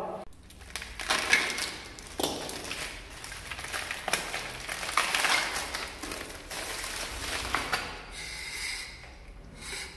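Plastic film and cardboard packaging crinkling and rustling in irregular crackly bursts as it is pulled off a table leg.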